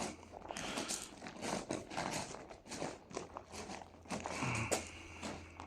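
Footsteps crunching irregularly over grit and rubble on the tunnel floor.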